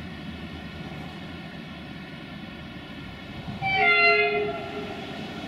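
Horn of an approaching Romanian 060-EA1 (class 41) electric locomotive, sounded once for about a second past the middle, its pitch sagging slightly, over a steady low rumble of the oncoming train.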